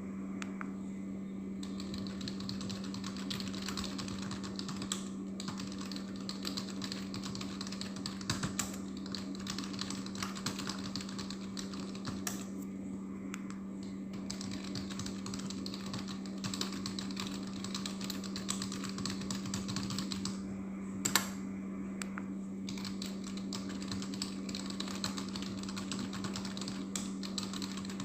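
Typing on a computer keyboard: a continuous, rapid patter of key clicks, with one louder key strike about three quarters of the way through. A steady low hum runs underneath.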